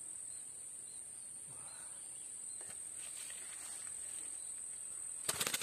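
Steady, high-pitched buzzing of insects without a break. Near the end a sudden burst of rapid rustling and fluttering becomes the loudest sound.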